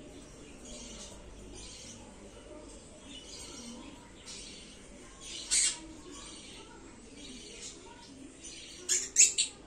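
Pineapple green-cheeked conure giving short, sharp squawks: one about halfway through and a quick run of three near the end, the last ones the loudest, with fainter chirps between.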